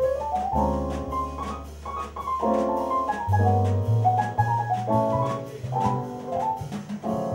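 Jazz piano playing held chords over long, low bass notes, with a light, steady tick of percussion keeping time.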